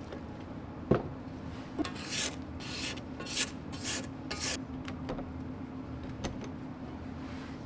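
Silicone spatula scraping around a stainless steel stand-mixer bowl of batter in about five quick strokes, over a steady low hum, with a single knock about a second in.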